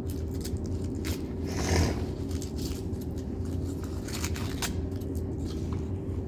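Small plastic toy pieces being handled: scattered light clicks and taps of a Polly Pocket playset and dolls being fitted into place, with a longer scraping rustle about one and a half seconds in.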